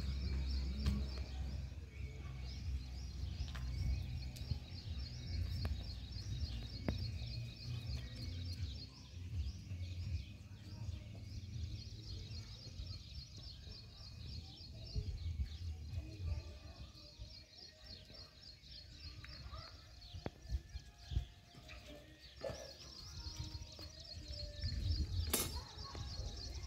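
Outdoor ambience: a high, fast-pulsing chirring trill that comes and goes in stretches of a few seconds, over a low rumble, with a few faint taps.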